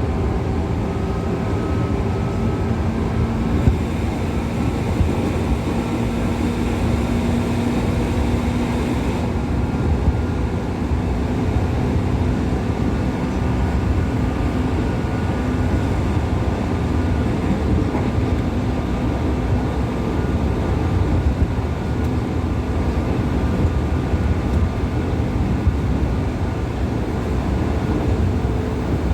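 JR East 205 series electric commuter train running, a steady low rumble throughout, with a faint hum that fades about nine seconds in.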